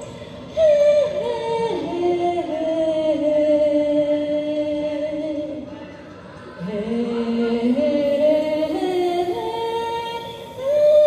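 A woman singing a slow song through a microphone and PA, holding long notes and gliding between pitches over backing music. She sings two phrases, with a short breath break at the start and another about six seconds in.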